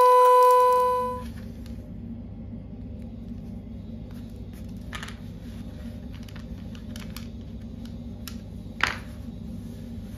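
A loud steady electronic tone cuts off about a second in. Then small laser-cut 3 mm plywood hinge parts click lightly against each other and the table as they are handled, with one sharper click near the end, over a low steady hum.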